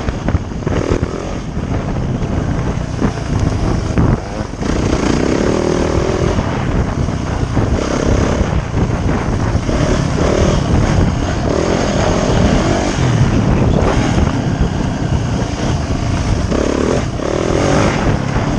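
Dirt bike engine running and revving up and down, with heavy wind noise on the microphone.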